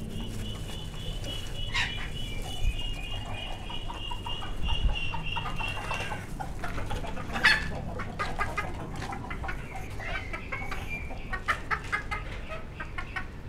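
Aseel chickens clucking. A high, rapidly pulsing call runs for about the first six seconds, followed by scattered short clucks and sharp taps.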